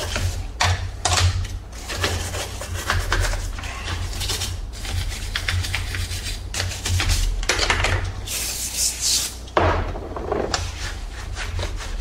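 Small brush scrubbing a plastic part from a Shark Rocket cordless stick vacuum in quick, uneven rubbing strokes. A brief hiss comes about eight seconds in.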